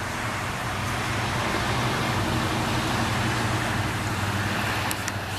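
Road traffic: a passing motor vehicle's engine hum and tyre rush, swelling in the middle and easing off near the end.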